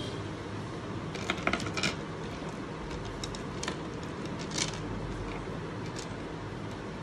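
Light clicks and clinks of small hard objects being handled: a quick cluster about a second in, then a few single ones, over a steady background hum.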